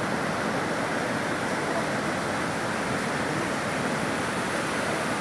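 Steady, even wash of surf on a sandy beach.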